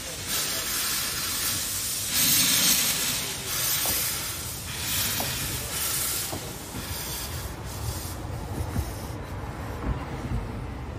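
Narrow-gauge steam locomotive hissing steam in repeated bursts roughly every second or so, the bursts growing fainter from about seven seconds in while a low rumble continues underneath.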